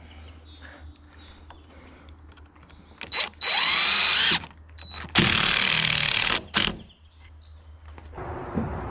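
Cordless impact driver driving a screw into rough-sawn lumber in two runs: a short run with a rising whine about three seconds in, then a longer, louder run about five seconds in.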